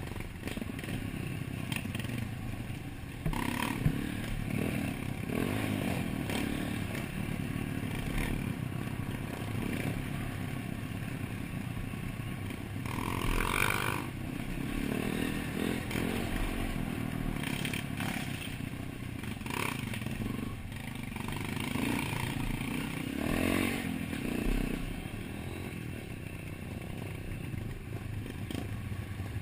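Dirt bike engine running under load on a rough trail, engine speed rising and falling as the rider works the throttle, heard up close from the bike's own handlebar-mounted camera. Clattering knocks come from the bike jolting over the rocky ground, a few of them louder than the rest.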